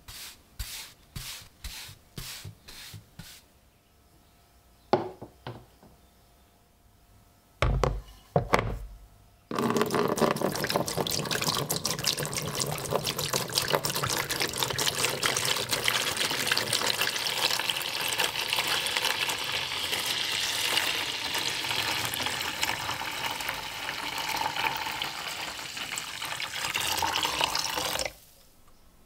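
A few short brush strokes, then several knocks and low thuds. From about ten seconds in, liquid pours steadily into a tray over a rusty axe head, set to soak off the rust, and stops suddenly near the end.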